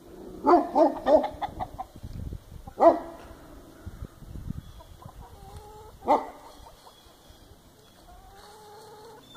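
Chickens clucking and squawking: a quick run of loud squawks in the first couple of seconds, single loud squawks about three and six seconds in, and softer drawn-out calls in between.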